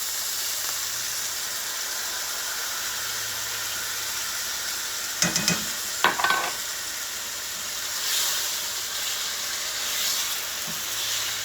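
Chicken fingers and a sweet soy-based sauce sizzling in a hot oiled pan on a stovetop: a steady frying hiss. A few sharp clicks come about five to six seconds in.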